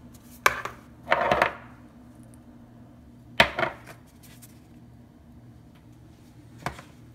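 Seasoning containers (salt shaker, pepper grinder, seasoning can) handled and set down on a tiled countertop: a sharp knock, a short rattling burst about a second in, two more knocks close together near the middle, and a lighter tap near the end.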